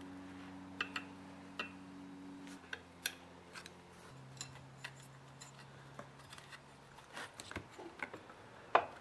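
Light, scattered metal clicks and taps of needle-nose pliers and a screwdriver working wire connectors onto the tabs of a chainsaw ignition module, with a sharper click near the end. A faint, steady low hum runs underneath.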